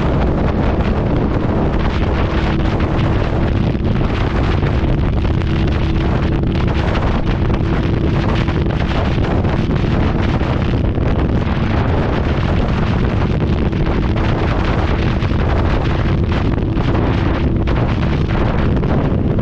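Wind buffeting the microphone over the steady drone of a Harley-Davidson V-Rod's liquid-cooled V-twin engine running at an even cruising speed.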